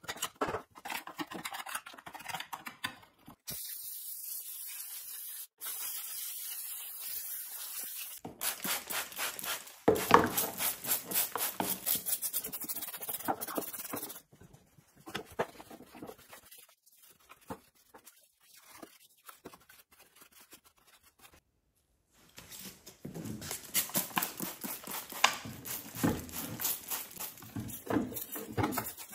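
A pointed tool scraping caked dirt off a plastic chainsaw cover, then a steady hiss for a few seconds, followed by a trigger spray bottle squirting cleaner onto the plastic housing with rapid scrubbing and wiping. A quieter patch of light handling in the middle.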